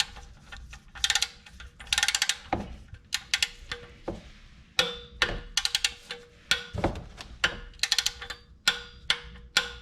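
Ratcheting torque wrench clicking in short bursts of rapid clicks, with single sharp clicks between, as a fastener is tightened to 25 of torque.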